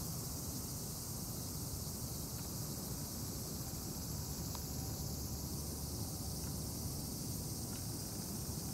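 Steady, high-pitched outdoor insect chorus over a low, even rumble, with no distinct events.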